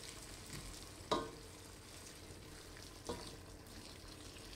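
Low, steady sizzle of olive oil and onion frying in a steel pot under layered kibbeh patties, broken by two sharp knocks, the louder about a second in and a weaker one about two seconds later.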